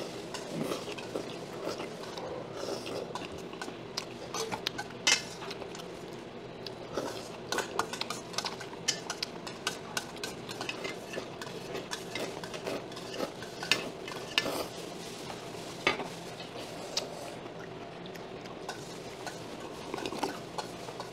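Metal chopsticks clicking and scraping against a stainless-steel bowl as mixed noodles are stirred and eaten, with small clinks of tableware.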